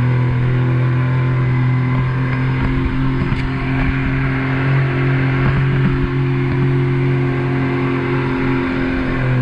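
Mini jet boat's engine running hard at a steady speed under way, with rushing water and wind noise over it.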